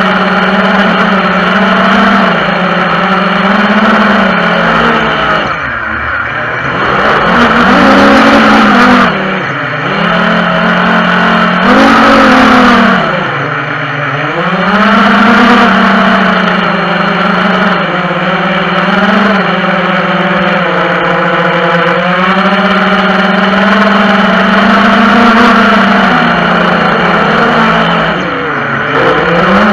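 FPV quadcopter's electric motors and propellers whining, heard from its onboard camera. The pitch drops sharply and swoops back up about four times as the throttle is cut and pushed again.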